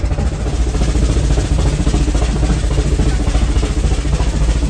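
Steam-driven Brienz Rothorn Bahn cog railway train climbing: a steady low rumble with fast, continuous clattering from the running gear.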